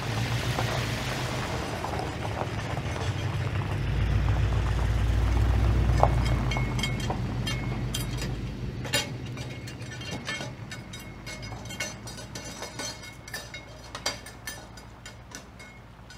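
Vintage car's engine running with a low rumble that builds and then fades as the car drives off, followed by many small crackling ticks from tyres rolling over a gravel drive.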